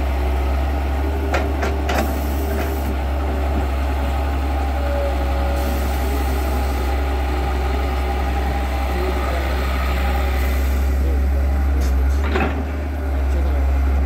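Excavator's diesel engine running steadily with a deep, constant hum, with a few sharp knocks about a second and a half in and again near twelve seconds.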